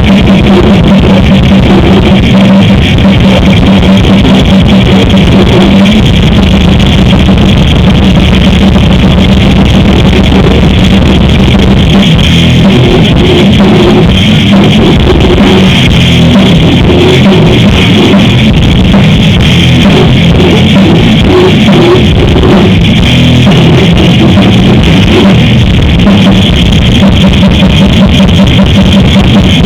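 Live extreme metal band playing: heavily distorted guitars and bass over fast, dense drumming, very loud and clipped.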